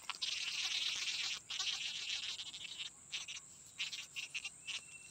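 A high, dense chorus of forest animals in two long stretches, the first breaking off about a second and a half in and the second near three seconds, followed by scattered short pulses.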